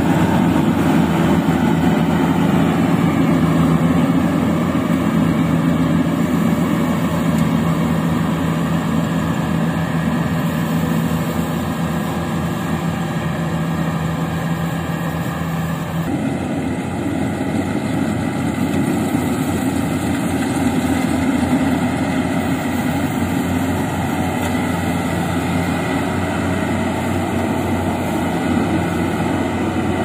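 Compact rice combine harvester's engine running steadily under load; the engine note changes abruptly about halfway through.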